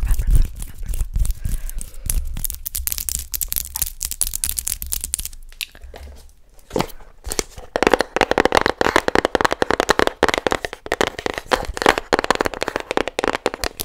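Fast, chaotic ASMR tapping and scratching of long fingernails right at a microphone: dense crackly clicks with a low rumble under them at first. After a short lull about six seconds in, a denser, louder run of rapid nail taps and scratches on a small cardboard box follows.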